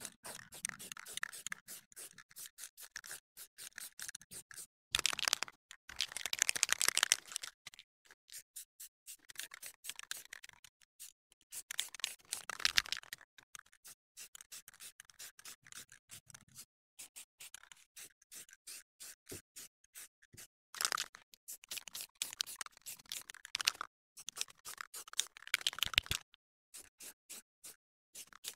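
Aerosol spray-paint can hissing in several bursts of one to three seconds, with pauses between them.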